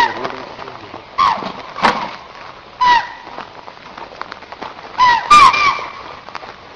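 Short, sharp animal calls, each with a quick drop in pitch, given singly about once a second and then three in quick succession about five seconds in.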